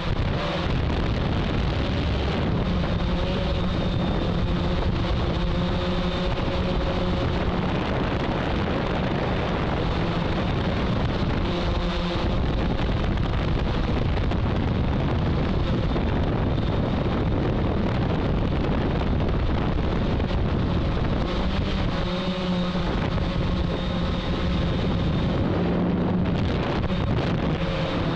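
A hexacopter's electric motors and propellers droning steadily, a dense buzz with a faint hum whose pitch shifts a little as the craft manoeuvres, mixed with wind noise on the microphone.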